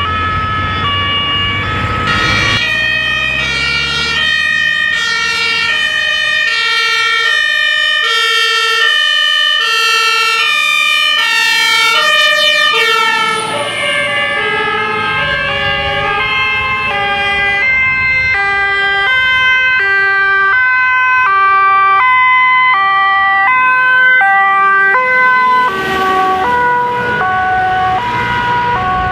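Two-tone sirens of several German fire engines sounding together, their high-low steps out of step with one another. About halfway through the tones drop in pitch as the vehicles pass, and a low engine rumble is heard at the start and again near the end.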